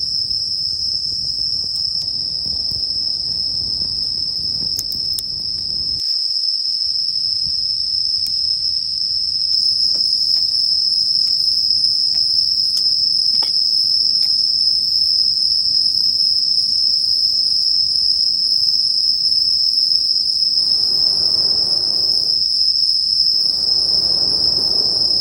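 Crickets trilling in a steady, unbroken high-pitched chorus, with a few faint clicks partway through and two short swells of lower noise near the end.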